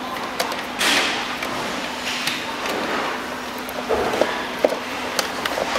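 Scattered clicks, scrapes and light knocks of a screwdriver and plastic wire connectors being worked on the hard plastic body and motor gearbox of a children's electric ride-on buggy, over steady background noise.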